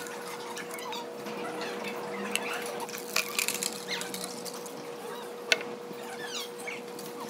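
A drink with ice poured from a tumbler into a foam to-go cup: splashing and a quick cluster of clinks a few seconds in, then a single sharp knock. A steady hum runs underneath.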